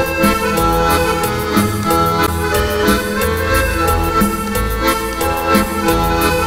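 Accordion-led instrumental music with a steady beat and a bass line.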